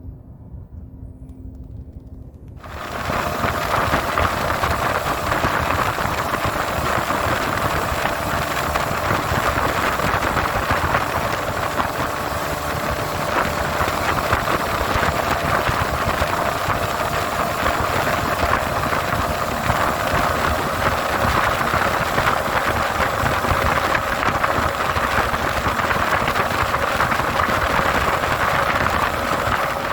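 A boat's outboard motor running steadily, with a loud rushing noise under its hum. It comes in suddenly about two and a half seconds in.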